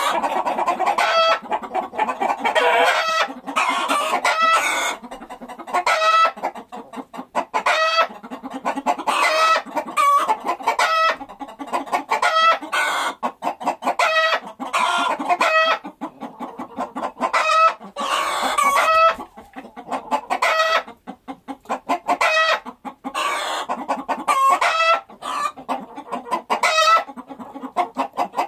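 Chickens clucking in a near-continuous string of short calls with brief pauses between them.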